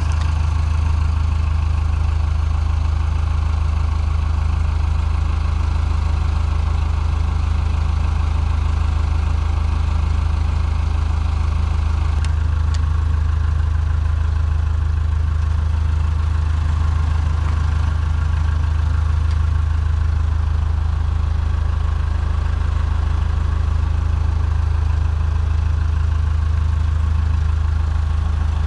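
An engine idling: a steady, unchanging low hum, with a single sharp click about twelve seconds in.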